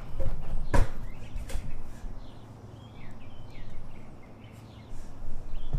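A sharp knock about a second in, with a couple of lighter knocks around it, as of hard parts being handled and set down. After that, small birds chirp in the background.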